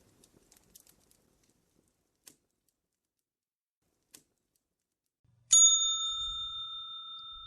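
A few faint, sparse crackles, then about five and a half seconds in a single loud bell-like chime is struck and rings on, slowly fading.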